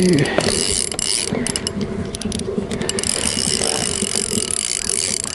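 Spinning fishing reel clicking and ticking as line is reeled in, a rapid irregular run of small mechanical clicks.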